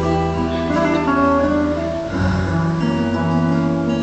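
Instrumental passage of a ballad with no vocals: guitar over held notes and a steady bass line.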